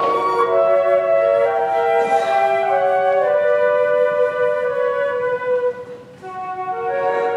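Two flutes playing in harmony: two lines of held notes moving against each other. The sound dips briefly about six seconds in, then the phrase resumes.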